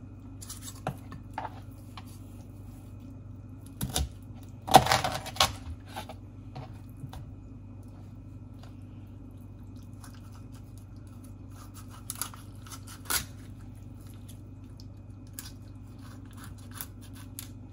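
Kitchen knife cutting a whole raw chicken into quarters on a plastic cutting board: scattered crunches and clicks as the blade works through the joints and knocks the board, loudest in a cluster about four to five seconds in and again around twelve seconds. A steady low hum runs underneath.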